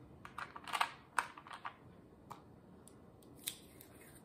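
Scissors snipping washi tape: a quick run of small snips and clicks in the first second and a half, then a couple of single snips.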